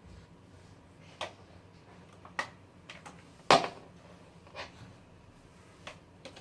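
A handful of separate knocks and clacks from hard objects being handled, with one loud knock about halfway through. No vacuum motor is running.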